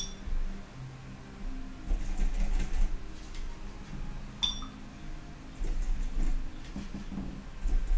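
Light clinks of watercolour painting gear on a ceramic palette: two short ringing clinks, one right at the start and one about four and a half seconds in, with soft knocks and handling on the desk between them.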